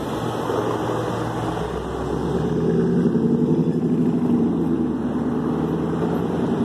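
Road traffic passing close by: vehicle engines running with tyre noise on the road, getting louder for a couple of seconds in the middle.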